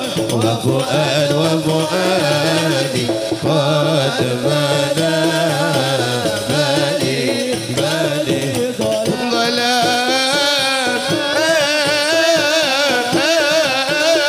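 A man singing an Arabic devotional sholawat into a microphone in long, wavering, melismatic phrases over hand-played frame drums. The singing becomes more heavily ornamented about nine seconds in.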